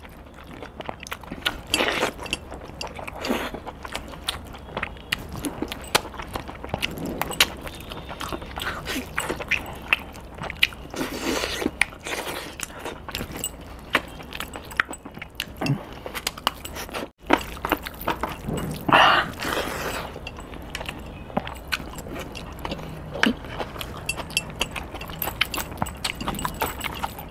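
A person eating chicken leg pieces in green masala with rice by hand, close to the microphone: chewing and biting, with many short wet clicks and smacks. A louder mouth sound comes about two-thirds of the way through.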